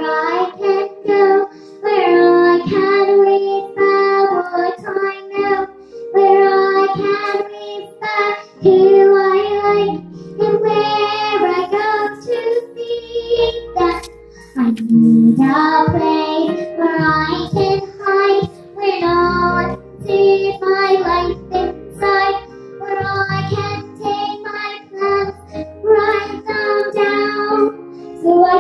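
A young girl singing a song into a microphone, in phrases of held notes, with a live band of keyboard, bass guitar and drums accompanying her.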